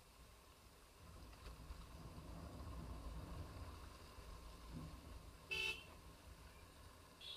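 A motorcycle horn gives one short toot about five and a half seconds in, and a second toot starts right at the end. Under it runs the low rumble of the ride, swelling through the middle.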